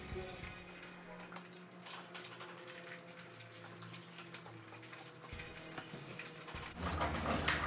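Faint background music with sustained notes and a light ticking beat; a louder, noisier sound comes in near the end.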